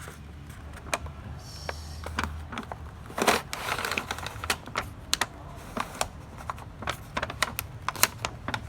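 Irregular plastic clicks, taps and light knocks from hands working inside a colour laser printer to clear a paper jam, with a short scraping burst about three seconds in.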